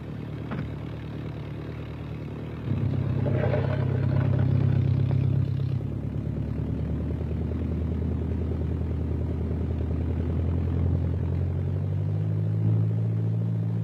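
de Havilland Chipmunk's Gipsy Major four-cylinder piston engine running at taxi power. It is opened up louder about three seconds in, eases back after about three seconds, then runs steadily with a slight change in pitch near the end.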